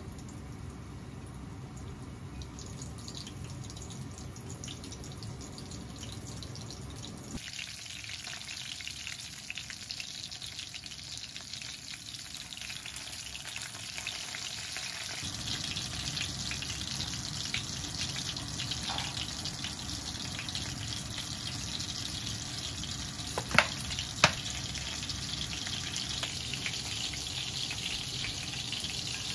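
Breaded white fish fillets deep-frying in oil in a wok: a steady fizzing crackle that sets in about a quarter of the way through and grows fuller past the middle, over a low hum at the start. Two sharp clicks come near the end.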